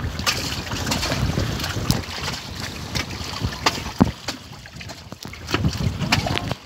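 Wind buffeting the microphone over the wash of the sea around a jangada, a wooden sailing raft, broken by scattered sharp clicks and knocks.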